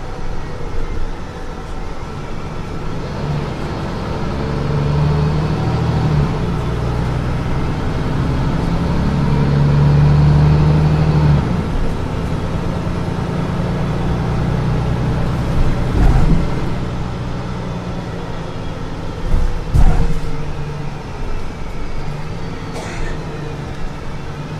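Mercedes-Benz Citaro C2 city bus accelerating: the engine note climbs and drops back twice as the automatic gearbox shifts up, then runs steadily. Two sharp knocks come about two thirds of the way through.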